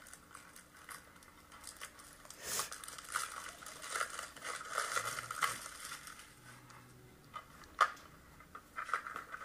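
Plastic shrink-wrap crinkling and tearing as a DVD case is unwrapped, played through laptop speakers, with irregular crackles and one sharp click near the end.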